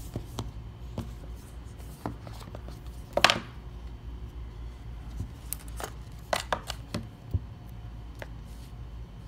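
Cardboard phone box and phone being handled during an unboxing: the lid slid off and the phone lifted out of its tray, with scattered taps, clicks and scrapes, the loudest about three seconds in.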